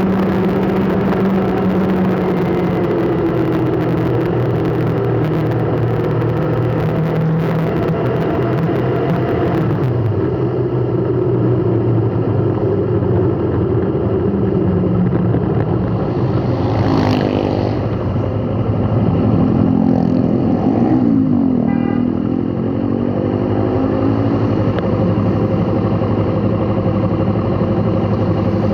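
Motor vehicle engines in slow road traffic, running steadily. About two-thirds of the way through, engines rev up and back down.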